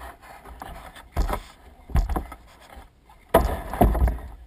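Plastic kayak hull scraping and grinding over a grooved concrete boat ramp as it is hauled up by its handle in jerky pulls: four loud scrapes, the last two close together and loudest.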